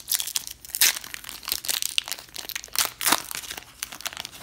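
Plastic-foil wrapper of a 2018 Bowman baseball card pack being torn open and peeled back by hand, crinkling in quick, irregular snaps, loudest about a second in and again just after three seconds.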